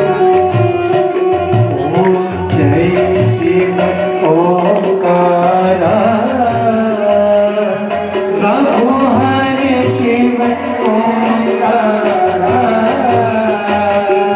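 Devotional aarti song: a voice singing over a steady rhythm of tabla strokes, with a sustained instrument holding long tones underneath.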